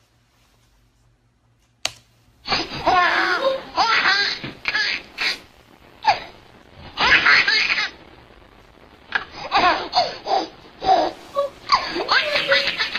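A baby laughing in repeated fits with short pauses between them, starting about two and a half seconds in after near silence broken by a single click.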